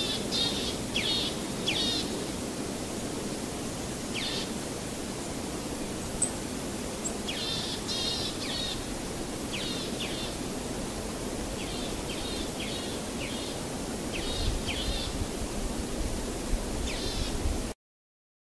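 Small birds chirping in short runs of quick, high notes every second or two over a steady background hiss; the sound cuts off suddenly near the end.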